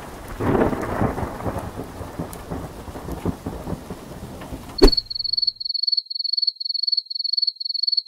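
Thunderstorm sound effect: thunder rumbling over steady rain. About five seconds in it cuts off with a click, and a crickets sound effect follows: high-pitched chirping in quick, even pulses.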